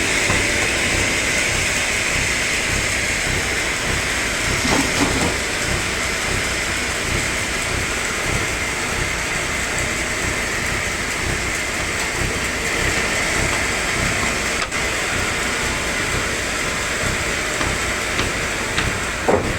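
Power saw cutting steadily through a large log, a continuous grinding noise with a brief knock about five seconds in and another near the end.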